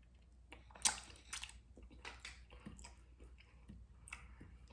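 Chewing and wet mouth clicks of someone eating cocoyam fufu with achu soup. A sharper smack comes about a second in, followed by a few softer clicks.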